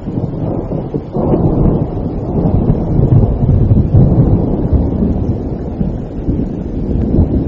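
Thunder rumbling, swelling about a second in and rolling loudest a few seconds later, over steady rain.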